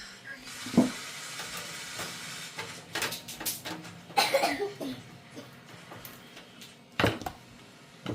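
Several clicks and knocks of hard objects being handled, with a brief hiss near the start.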